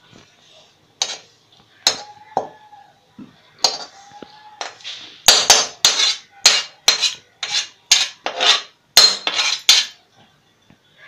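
Steel ladle scraping and knocking against a steel kadhai while roasted grated coconut is emptied into a steel bowl. A few scattered clinks, one left ringing, then a quick run of loud scrapes and knocks, about three a second, that stops shortly before the end.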